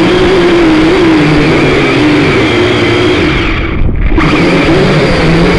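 Toy quadcopter's electric motors and propellers buzzing loudly, heard from its onboard camera, the pitch wavering up and down as the throttle changes. About four seconds in, the upper hiss drops out briefly.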